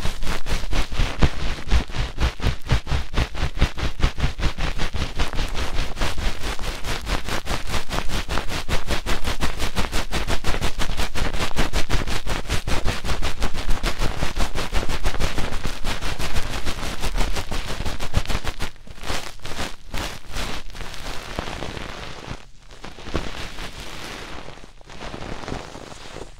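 ASMR 'helicopter' trigger: hands beating rapidly against the ears of a binaural microphone, making a fast, even train of thudding 'tu-tu-tu' pulses, several a second. Near the end the rhythm breaks into a few scattered thuds and fades away.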